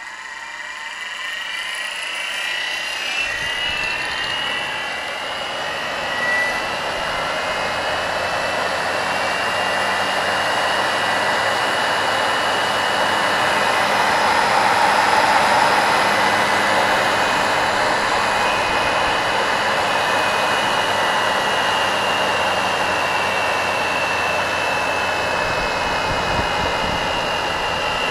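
Leili permanent-magnet DC treadmill motor, its flywheel fitted, spinning up over the first few seconds and then running freely at speed with a steady whine.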